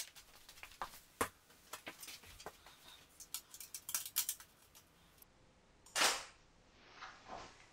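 Sharp clicks and light taps of a flash head and its fittings being handled and adjusted on a light stand, the sharpest click at the very start, then a short rush of noise about six seconds in.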